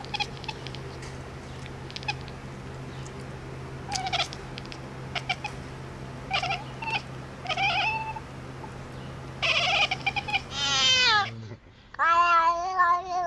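Cat meowing: several short meows, then a long falling yowl about ten seconds in and a loud, drawn-out wavering yowl near the end.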